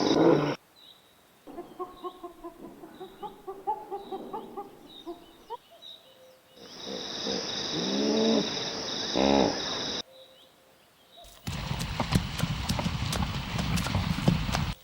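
Horse whinnying with a shaky, falling call, with a quieter run of short pitched calls between the whinnies. Near the end comes a rapid clatter of hooves clip-clopping.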